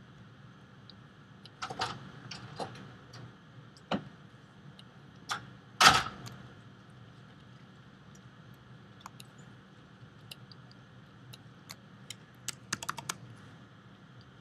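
Scattered clicks and taps of a computer keyboard and mouse in use, over a faint steady hum. There is a louder knock about six seconds in and a quick run of clicks near the end.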